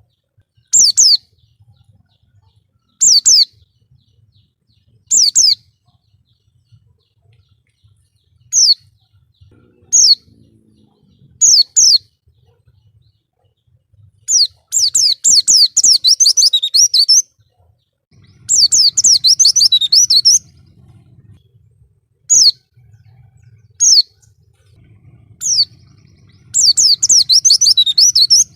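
White-eye (pleci) singing: short, high chirps every second or two, broken three times by longer phrases of rapid twittering song lasting two to three seconds each.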